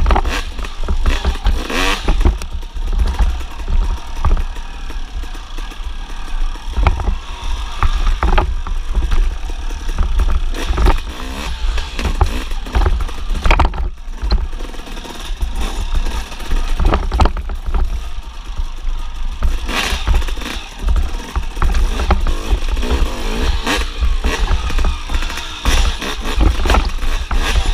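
Suzuki RM250 two-stroke single-cylinder dirt bike engine revving up and down repeatedly while being ridden over rough, rocky ground. A heavy low rumble and scattered knocks and clatter run under it.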